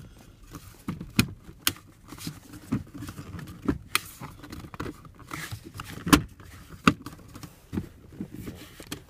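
Hard plastic clicks and knocks as the plastic side cover of a VW Golf Mk4 armrest bracket is worked and pressed into place, the cover going in stiffly. The two loudest knocks come about six and seven seconds in.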